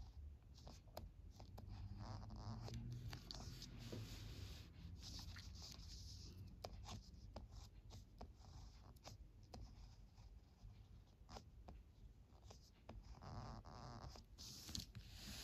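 Ballpoint pen writing on paper: soft scratching of the tip along each stroke, with small sharp taps as the tip touches down and lifts between strokes.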